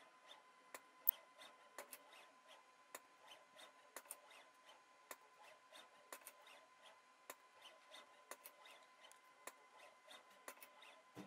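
Faint, irregular clicking and ticking, several clicks a second with one sharper click about a second in, over a faint steady tone: a KUKA KR3 six-axis robot and its gripper picking and placing small plastic cubes in a palletizing demo.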